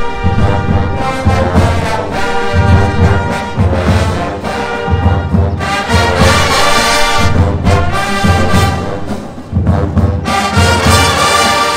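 Marching band brass playing a loud arrangement over regular low bass notes, with the full band swelling louder and brighter about six seconds in and again near the end.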